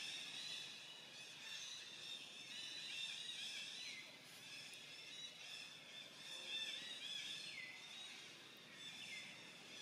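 Faint chorus of birds chirping and trilling over one another, with a few calls sliding down in pitch.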